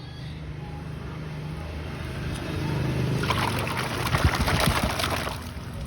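Water splashing and trickling as toys are washed, getting louder and busier about halfway through, over a steady low hum.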